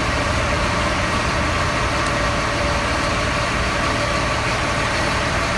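Aviation fuel truck's engine idling steadily with a faint steady whine, its pump power take-off switched off.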